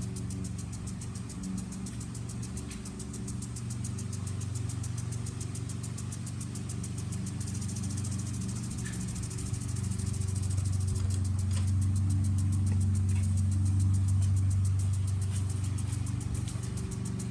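Lawn mower engine running steadily, getting louder about ten seconds in and easing off near the end. A fast, even high-pitched ticking runs over it.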